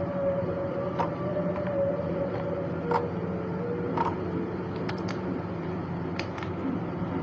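Hands kneading and stretching soft glittery flower clay, giving a string of short sharp clicks and pops, several of them close together after the middle, over a steady background hum.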